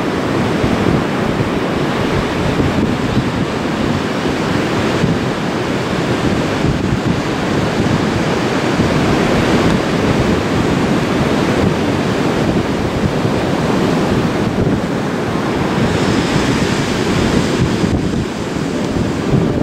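Ocean surf washing on a beach, a steady rush of waves, with wind buffeting the microphone.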